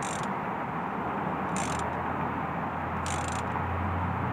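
Ratchet wrench clicking in three short bursts while camshaft cap bolts are run down by hand, over a steady background rush.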